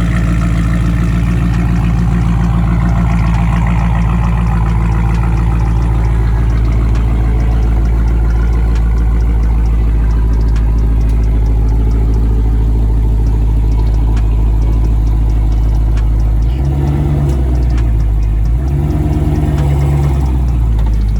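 2018 Dodge Challenger Scat Pack's 392 HEMI V8 engine running steadily and loud, its note rising briefly twice near the end as the revs change.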